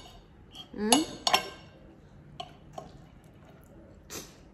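Cutlery clinking against eating bowls: two sharp, ringing clinks about a second in, then a few fainter taps. A short rising voice sound comes just before the clinks.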